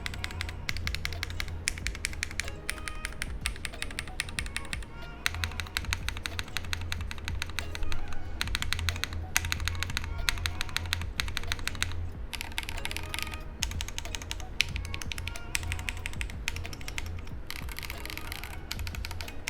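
Continuous fast typing on a mechanical keyboard fitted with Akko Botany switches (lubed nylon housings, light 38 g spring) and double-shot PBT cherry-profile keycaps, giving a mid-pitched, slightly deep thock on each keystroke.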